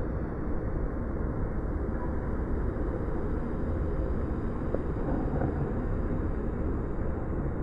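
Steady low rumbling noise with no distinct events, like wind or distant traffic on a recording's microphone.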